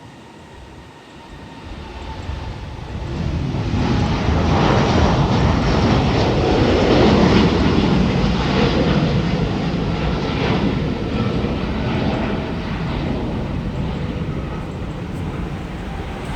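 Jet airliner passing close by, a Boeing 737 MAX 8 with its CFM LEAP-1B turbofans: the engine noise builds over the first few seconds to a loud peak, then eases off slowly.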